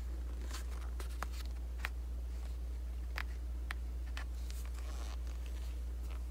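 Thick sheets of a 6-inch scrapbook paper pad being handled and flipped: a string of sharp, crisp snaps and ticks of the card, then a brief rustle about five seconds in, over a steady low hum.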